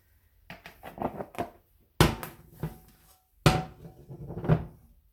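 Cast iron skillet clattering and knocking as cornbread is turned out onto a plate, with two heavy thumps about a second and a half apart in the middle and lighter knocks around them.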